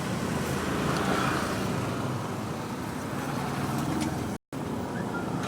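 Steady low rumble of motor vehicle noise, broken by a brief dropout to silence about four and a half seconds in.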